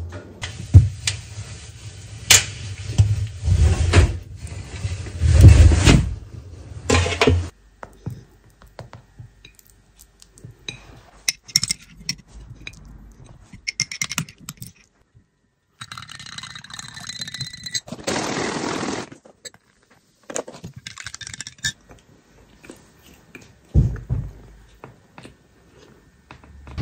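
Household handling sounds: for the first seven seconds or so, knocks and thumps as a washing machine is loaded, then scattered clinks of a metal spoon against a glass mug and dishes on a table.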